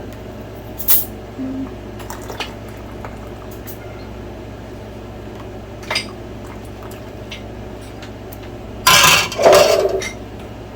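Glass jars and kitchen utensils clinking now and then, then a louder clatter of dishes lasting about a second near the end.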